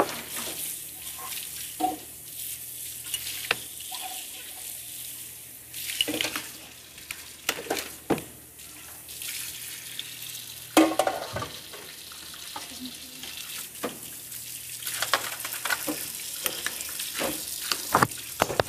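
Kitchen tap running into a sink as dishes are washed, with scattered clinks and clatters of dishes and utensils.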